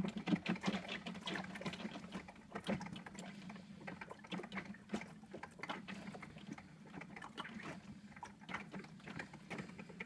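Russell Hobbs Chester Grind & Brew drip coffee machine brewing: bubbling away with irregular pops and gurgles as coffee comes into the glass jug, over a steady low hum.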